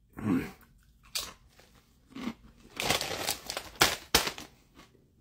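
Crunching of Doritos Sweet and Tangy BBQ tortilla chips being chewed: a run of crisp, irregular crunches, after a short hummed sound from the eater at the start.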